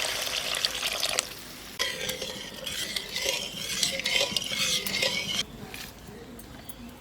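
Cooking in a pan: a sizzle for about the first second, then a spatula stirring and scraping through the freshly fried spice paste, clicking against the pan for a few seconds until it stops about five seconds in.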